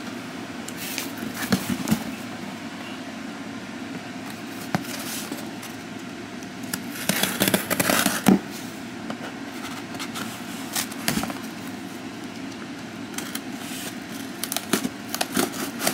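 Kitchen knife cutting and scraping along packing tape on a cardboard box, in scattered short scrapes and clicks with a louder run of them about halfway through and again near the end, over a steady low hum.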